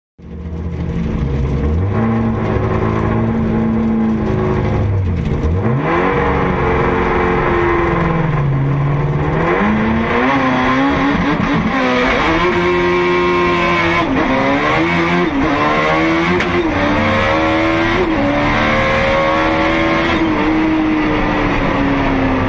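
Turbocharged Mitsubishi Lancer Evolution IX 4G63T inline-four accelerating hard on a drag-strip pass, heard from inside the cabin. Its pitch climbs and then drops sharply again and again as it shifts up through the gears.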